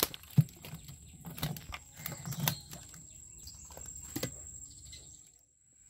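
Fish being shaken out of a bamboo chai fish trap into a net basket: a handful of irregular knocks and rattles from the cane trap, with wet flapping of the fish.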